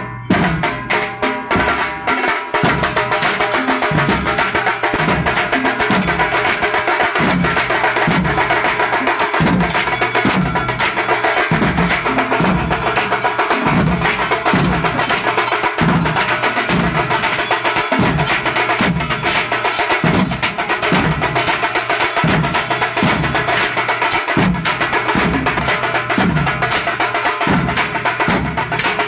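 Nashik dhol ensemble of large barrel drums beaten with sticks in a steady, driving rhythm. A deep stroke that drops in pitch comes about every three-quarters of a second under a fast, continuous clatter of stick strikes.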